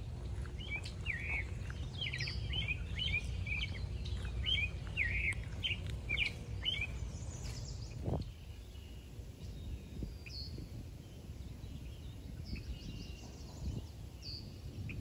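Songbirds singing, a busy run of short chirps over the first seven seconds or so, then fewer, higher calls. A low rumble runs underneath and drops away about eight seconds in.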